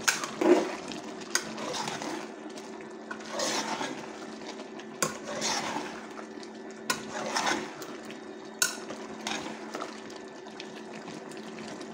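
A metal spoon stirring wet chicken gizzard and liver pieces with spices in an aluminium pot: repeated sloshing, scraping strokes, with about four sharp clinks of the spoon against the pot. A steady hum runs underneath.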